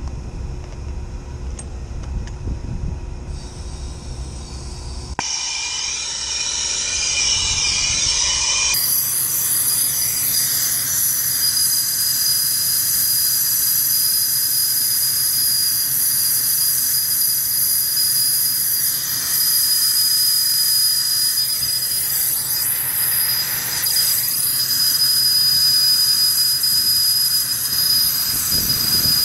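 Brazing torch flame (TurboTorch air-acetylene kit) hissing steadily on a copper pipe joint, with a thin high whistle running through it. The first few seconds are mostly a low rumble; about nine seconds in, the hiss becomes full and bright.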